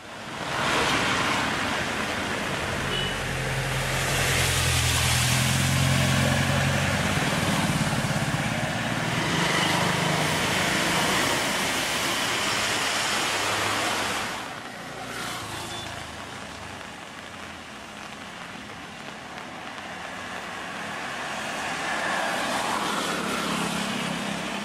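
Road traffic driving through standing rainwater: tyres hissing and splashing through the water, with the low engine hum of a passing vehicle. The sound is loudest over roughly the first half, drops off suddenly about halfway through, then builds again toward the end as more vehicles approach.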